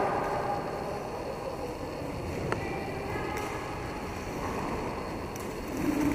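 Steady rumble of quad roller-skate wheels rolling over the rink floor during roller hockey play, with a single sharp knock about halfway through.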